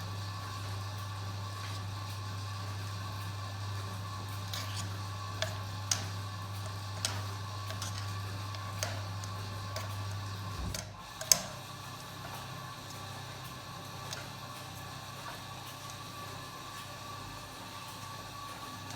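Kenwood washing machine running: a steady low motor hum that stops about ten seconds in, with scattered light clicks and one sharper click just after it stops.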